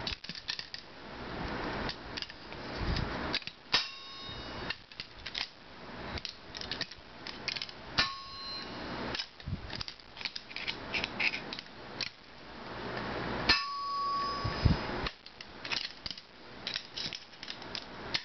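Locking pliers clicking and scraping against a hard drive's metal parts as they are bent into shape, with three ringing metallic clangs about 4, 8 and 13 seconds in, the last ringing for over a second.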